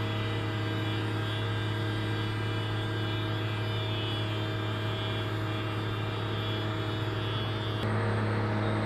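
Steady electric hum with several held tones from a large hangar's sliding-door drive motors as the doors slowly open. Near the end it gives way to a slightly louder, noisier hangar background.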